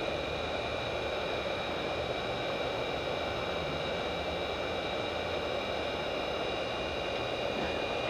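Hot-air reflow station's blower fan running: a steady airy hiss with a few faint, even high whines over it, as the nozzle blows hot air onto a tantalum capacitor to melt its solder.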